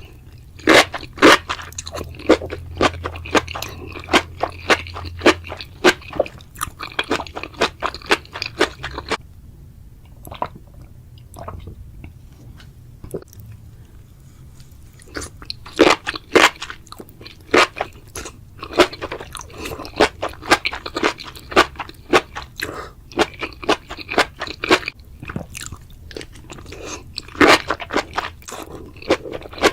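Close-miked crunching and chewing of crunchy mushrooms: many quick, sharp crunches, easing into a quieter, sparser stretch about a third of the way in before the crunching picks up again.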